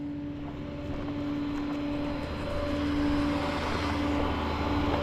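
An engine running steadily, with a constant humming tone over a low rumble, growing a little louder over the seconds.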